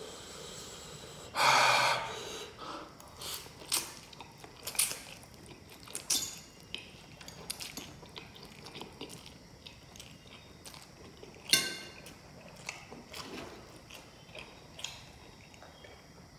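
Close-miked eating sounds: a loud slurp of instant noodles about a second and a half in, then repeated wet chewing and lip smacks, with a second sharp slurp past the middle.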